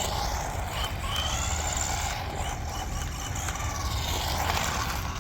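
JJRC Rigid C8805 1/14-scale RC truck's brushed electric motor whining as it drives, its pitch sweeping up and down as the truck speeds up and slows, over a steady low rumble.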